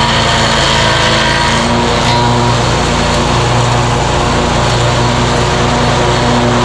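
Scag Tiger Cat zero-turn mower running steadily as its deck is passed back and forth over a tree stump, the blades grinding into the wood.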